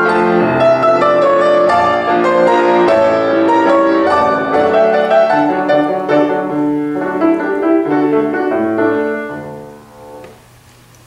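Grand piano played solo, full chords and melody that die away about nine seconds in, leaving a quiet pause.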